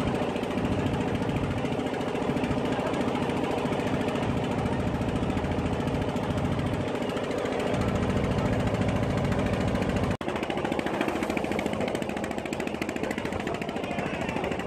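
Small wooden fishing boat's engine running steadily with a rapid, even beat. There is a brief break and a slight change in tone about ten seconds in.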